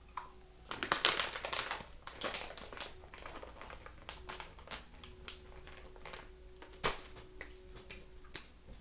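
Snack bag crinkling and a crunchy spicy snack being chewed: a dense run of crackles about a second in, then scattered sharp crunches and clicks.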